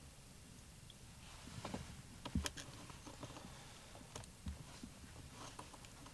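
Faint, scattered small plastic clicks and taps as a bulb holder is handled and pressed into a socket on the back of an instrument cluster circuit board, the sharpest click about two and a half seconds in.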